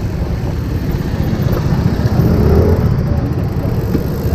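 Wind buffeting the microphone during a bicycle ride: a loud, uneven low rumble that flickers without letting up.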